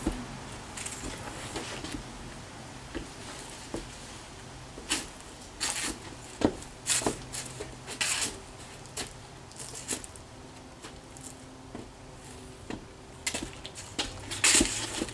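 Scattered short rustles and soft knocks over a low steady hum, with the busiest stretch in the middle and a loud pair near the end.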